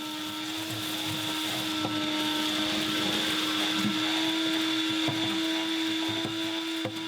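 Shop vacuum running at full speed with a steady motor hum and hiss, with small clicks and rattles of debris being sucked up.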